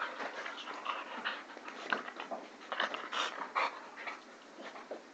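Two puppies play-fighting close to the microphone: panting with irregular short scuffling noises.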